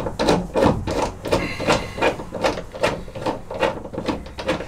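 Hand riv nut tool working a riv nut set into the van's sheet-steel panel: a run of sharp metallic clicks, about three to four a second.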